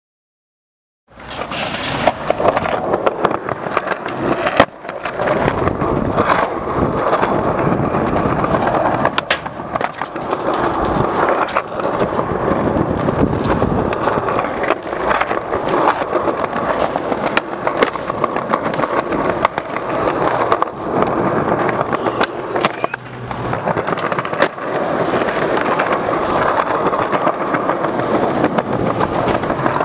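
Skateboard wheels rolling over plaza pavement, a steady loud grinding rumble that starts about a second in, with a few sharp clacks of the board striking the ground.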